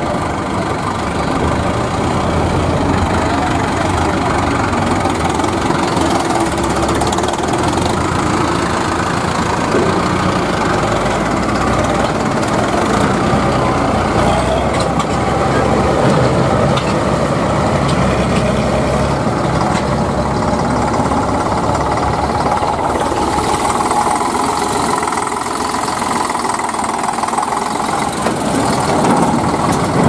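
Diesel farm tractor engines running steadily at low speed. After about two-thirds of the way through, the low rumble drops and a higher hiss comes up.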